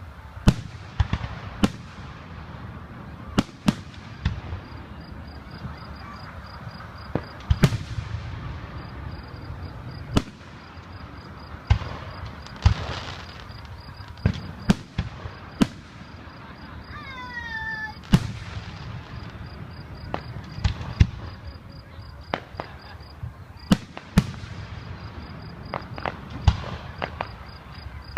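Aerial fireworks bursting overhead: a run of sharp bangs at irregular intervals, some in quick pairs, with a low rumble between them. A brief wavering whistle sounds a little past halfway.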